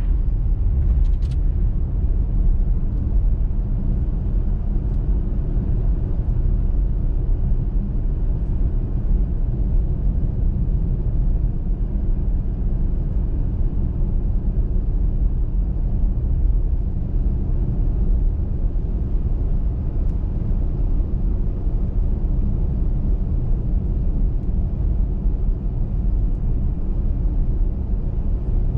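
Car driving steadily on a snow-covered motorway: an even, low rumble of tyres, road and engine that holds constant throughout.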